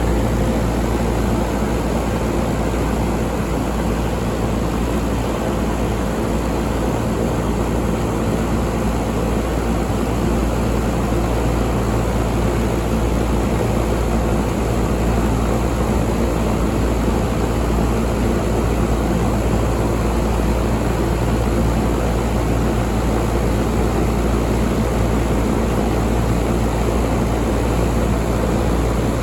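Large York 5-ton air conditioner running steadily: an even rushing of air over a low hum, with no change from start to end.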